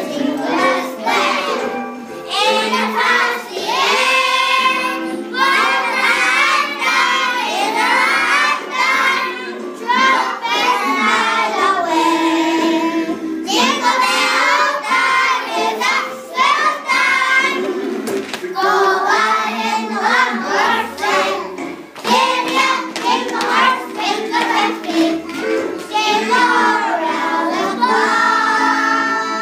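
A group of young children singing a song together, in continuous phrases with held notes.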